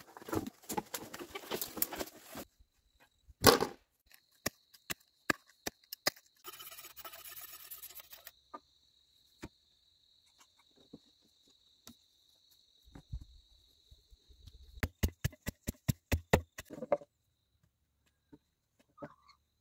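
Irregular sharp knocks and chopping blows on wood or bamboo: single strikes and short quick runs of hits. A thin, steady high tone runs faintly behind them for much of the time.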